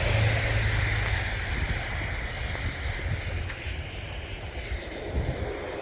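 Vehicle passing on the road and fading as it drives away, with a steady low rumble of wind on the microphone.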